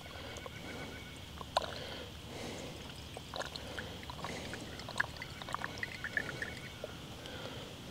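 Liquid alcohol fuel trickling in a thin stream from a squeeze bottle into the cup of an alcohol stove burner, faint, with small scattered ticks and drips.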